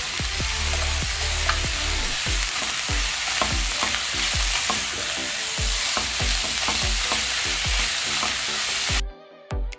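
Shredded cabbage and carrots sizzling in a hot nonstick frying pan while a silicone spatula stirs and tosses them, with frequent light knocks and scrapes against the pan. The sizzle cuts off suddenly near the end.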